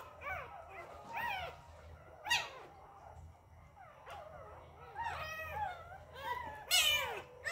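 Two-week-old puppy whimpering and squealing in short, high-pitched cries that rise and fall, several a second, with the loudest squeal near the end.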